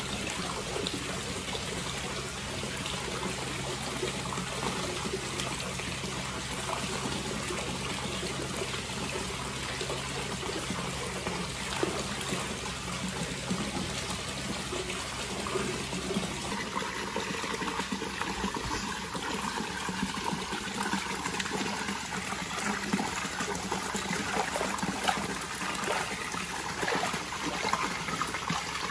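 Hot spring water pouring and splashing steadily into an onsen bath.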